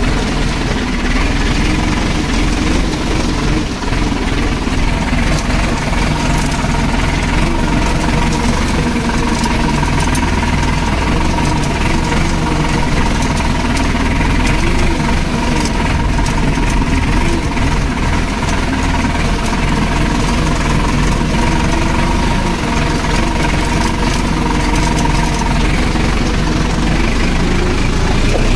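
Tractor diesel engine running steadily, its pitch wavering slightly.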